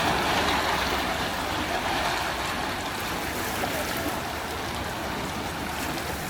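Steady rushing water, an even dense wash without distinct splashes, easing off slightly toward the end.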